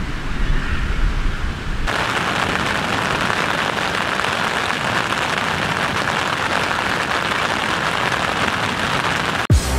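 Low wind rumble on the microphone for about the first two seconds, then steady rain falling on the tent's polyester fly sheet, heard from under the fabric; it cuts off suddenly near the end.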